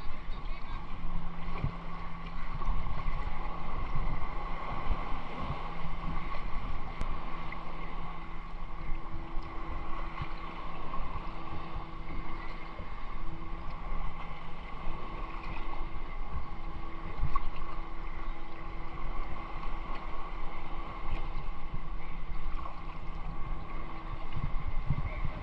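Shallow seawater sloshing and lapping around a person wading chest-deep, with wind buffeting the microphone and a faint steady hum underneath.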